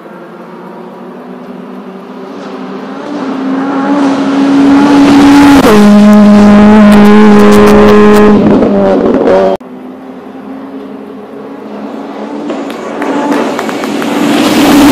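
Rally cars at racing revs on a tarmac stage. The first car grows steadily louder and its engine note drops sharply as it passes, about five and a half seconds in, with sharp pops and crackles as it goes away. After an abrupt cut, a second car approaches and reaches full volume near the end.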